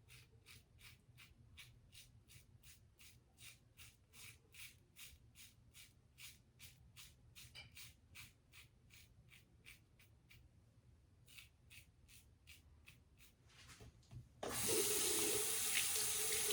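Quick, short strokes of a Gillette Tech safety razor scraping across stubble, about two to three a second with a brief pause. Near the end a tap is turned on and water runs steadily, much louder than the strokes.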